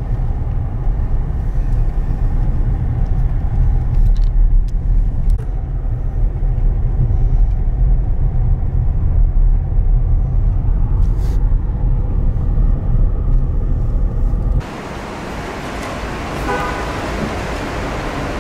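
Steady low rumble of engine and road noise inside a moving car. Near the end it cuts abruptly to a lighter hiss in a parking garage, with a brief pitched tone.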